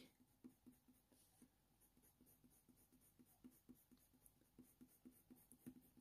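Very faint scratching of a Faber-Castell Polychromos colour pencil on hot-press watercolour paper, in short back-and-forth strokes, about four a second.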